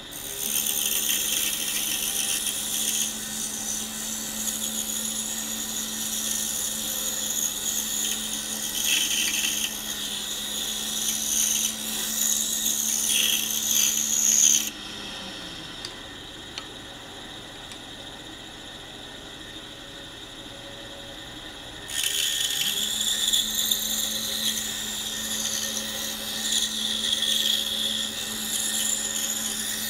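Pegas bandsaw with a narrow number 9 blade running and cutting a small block of buckeye, its motor humming steadily under a high hiss of blade through wood. About halfway through the saw is switched off and its hum falls away as it coasts down. Some seven seconds later it starts again, rising back to speed, and cutting resumes.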